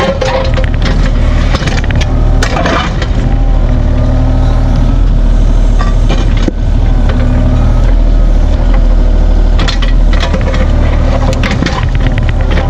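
Heavy equipment engine running steadily under load, with repeated clanks and scraping knocks of metal and debris.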